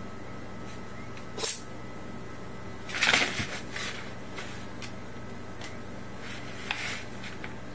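Kitten playing with a round plastic cat toy: a sharp knock, then a louder clatter a couple of seconds later, then a faint click near the end.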